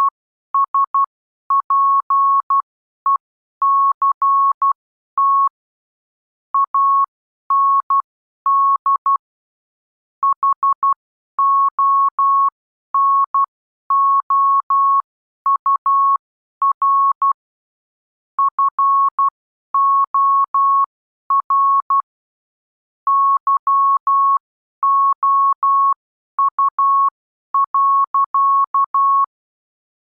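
Morse code (CW) sent as a single pure beep tone keyed on and off in dots and dashes, with gaps between letters and words. It is spelling out the close of a letter: 'affectionate respect and honour for you.'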